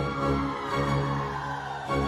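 Theme music: sustained chords that strike together at the start and again near the end.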